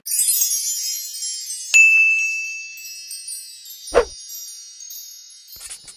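Sparkling chime sound effect of a logo intro sting. A shimmering high tinkle runs through it, with a bright ding about two seconds in that rings on and slowly fades, and a short hit about four seconds in.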